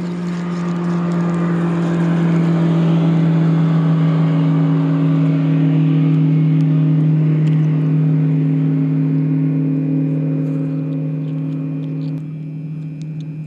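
A motor engine humming at a steady pitch, swelling over the first few seconds and dropping off sharply near the end, like a vehicle or boat passing.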